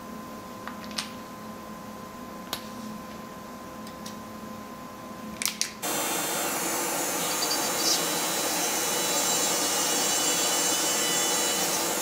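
A dental lab micromotor handpiece fitted with a 1.4 mm HSS twist drill switches on about six seconds in and runs steadily, drilling into the plastic connector of an anti-snoring splint. A few light clicks come before it.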